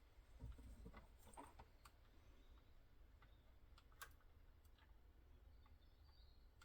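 Near silence with a low hum and a few faint, scattered small clicks, the sharpest about four seconds in.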